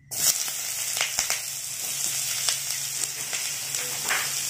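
Sliced onions and green chillies sizzling in hot desi ghee in a kadai, the sizzle starting suddenly as they hit the fat and then holding steady, with a few light ticks.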